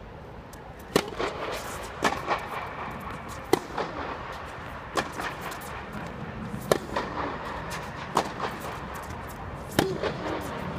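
Tennis ball struck back and forth with racquets in a rally: seven sharp pops about a second and a half apart, with fainter knocks between them.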